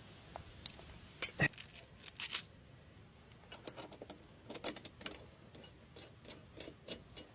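Scattered light metallic clinks and clicks of a lawn mower blade, its bolt and washer being handled while the new blade is fitted.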